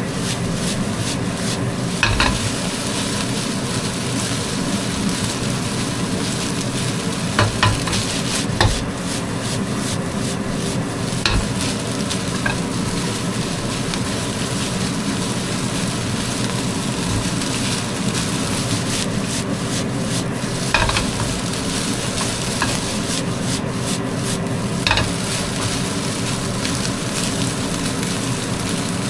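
Egg-coated rice sizzling as it is stir-fried in a hot pan, with a utensil clacking against the pan a handful of times.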